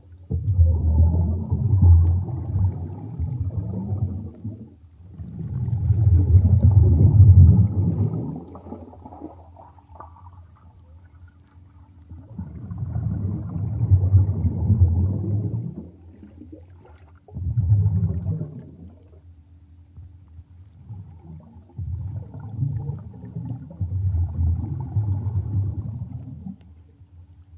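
Water heard underwater: low, deep surges of waves washing over, about six swells of a few seconds each with quieter lulls between, the loudest about six to eight seconds in.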